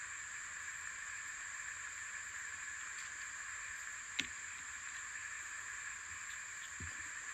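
Steady high-pitched background hiss, with one sharp click about four seconds in and a soft low thump near the end as the blind's aluminium frame and cord are handled.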